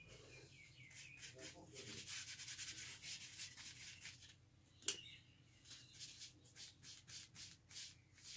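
Paintbrush scrubbing paint onto textured mixed-media paper: a faint, dry scratching with each back-and-forth stroke, quickening in the second half. There is one sharp click about five seconds in.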